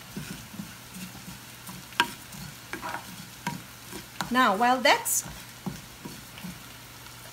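Cumin seeds and crushed red pepper being stirred in a hot pan as they roast, with light scraping and clicking of the utensil and a sharp tap about two seconds in.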